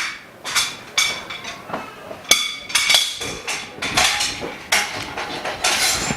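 Frame bars of a workbench enclosure being fitted together: a string of irregular sharp knocks and clinks, each ringing briefly, about two a second.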